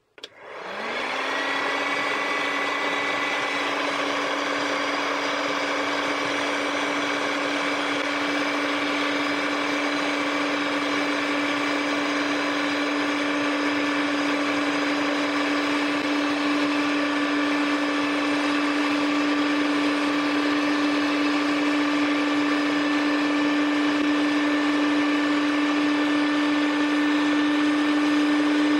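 Electric heat gun switched on, its fan motor spinning up over about a second, then running steadily with a hum and the hiss of blown air while it heats a metal leather-embossing die. The hum creeps slightly higher and louder as it runs.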